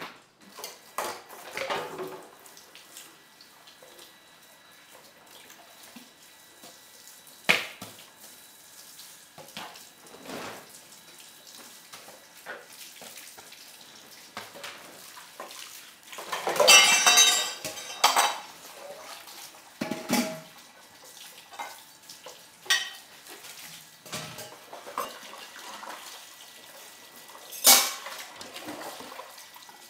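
Pots, dishes and cutlery clinking and knocking in scattered, separate strikes, with a louder noisy clatter of about two seconds just past the middle. A faint steady high tone runs underneath.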